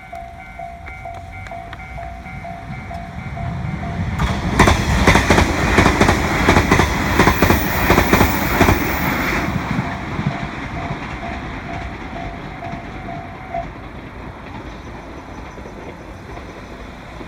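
Japanese level-crossing warning bell ringing in a steady repeated ding. About four seconds in, a train passes over the crossing for about five seconds, its wheels clacking over the rail joints and drowning out the bell. The bell goes on after the train and stops near the end.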